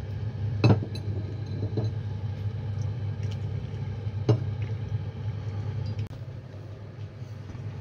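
Boiling water poured from a glass jar into a ceramic filter funnel, with a few sharp glass clinks over a steady low hum.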